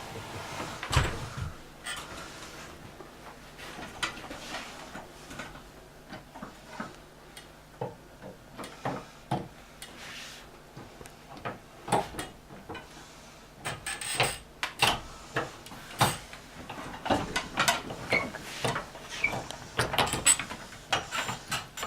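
Irregular clicks, knocks and scraping of a letterbox tool fitted with a Button Buddy head being worked against a door and its push-button handle. The clicks grow busier in the second half.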